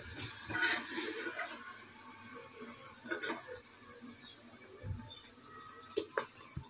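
Faint kitchen handling sounds: scattered light clicks and rustles, with a couple of sharper taps near the end, as a metal slotted spoon and fried chicken pieces are handled on a paper towel.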